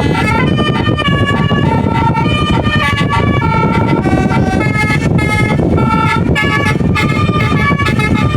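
Bus telolet horn, a set of multi-tone air horns, playing a quick tune of stepped notes, over a steady low engine rumble.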